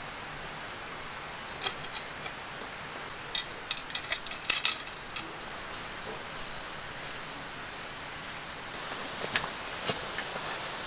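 Light metallic clinking and jangling of camp cooking gear being handled at a cast-iron pot hung by wire from a tripod over a charcoal burner, with a quick cluster of sharp clinks in the middle. Near the end a steady high chirring of crickets comes in.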